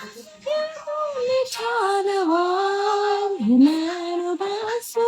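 A woman singing a slow melody, holding long notes that bend and waver, with a brief drop in pitch about three and a half seconds in.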